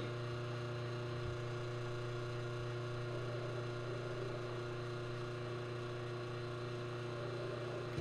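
La Marzocco Leva espresso machine humming steadily while a shot pulls, a low hum with a row of steady overtones that drops away at the very end.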